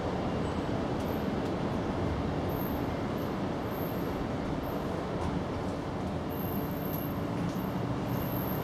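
Steady low background rumble with a faint hum, even throughout.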